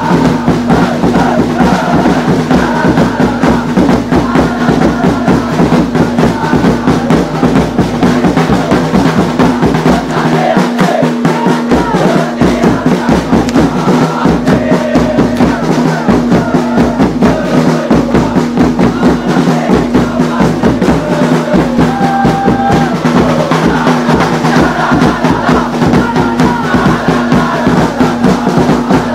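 Football supporters' end chanting and singing together to a steady, pounding drum beat, loud and close among the crowd. The low drum drops out briefly about ten seconds in, then picks up again.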